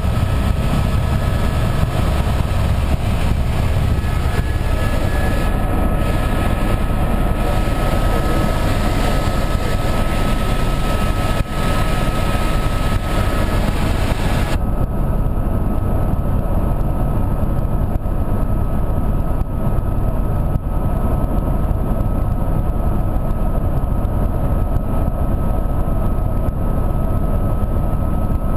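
Helicopter in flight heard from inside the cabin: a loud, steady engine and rotor noise with a thin steady whine running through it. About halfway through the sound turns duller as the high hiss drops away.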